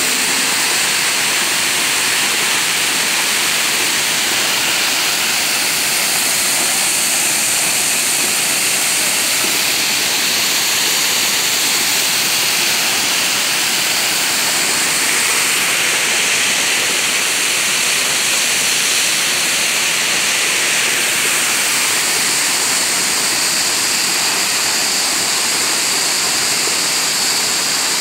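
Waterfall pouring in several streams off a cliff into a deep plunge pool: a steady rushing of water.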